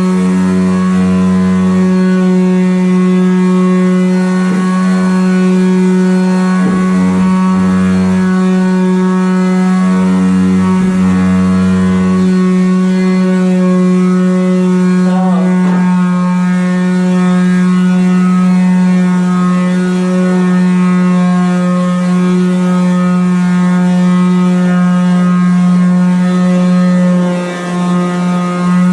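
Electric power sander running steadily at high speed, sanding surface rust off a pickup truck's steel frame: a loud, steady hum, its tone changing briefly several times in the first twelve seconds.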